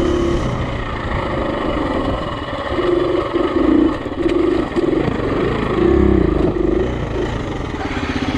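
Single-cylinder four-stroke dirt bike engine ridden at low speed, the throttle opened and closed in short bursts so that the engine note rises and falls repeatedly.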